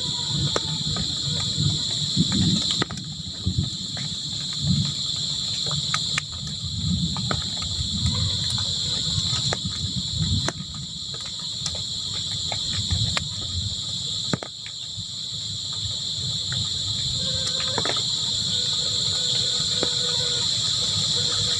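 Crickets chirring in a steady high-pitched chorus that dips briefly a few times. Irregular low rumbling and scattered faint clicks sit underneath.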